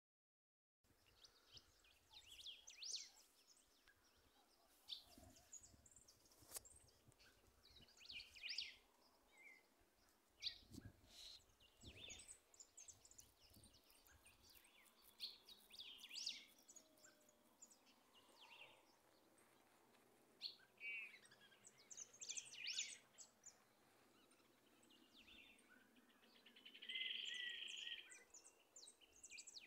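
Small birds calling in scrubland: short, high chirps and call phrases scattered throughout, with a longer, louder run of calls near the end.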